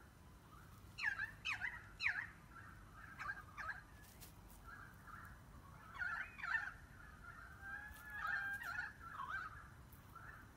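A series of short, high animal calls that sweep sharply down in pitch, repeated in clusters, with a held, wavering call near the end.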